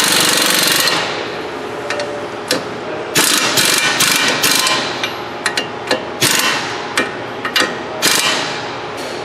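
Compact air impact wrench hammering strut bolts tight in several bursts: a long run at the start, a longer stuttering run in the middle, then short blips as the bolts seat.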